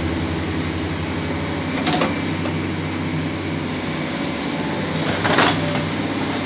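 SANY SY215C hydraulic excavator running steadily while it digs, with two short scraping crunches, about 2 seconds in and again near 5.5 seconds, as the bucket works into soil and brush.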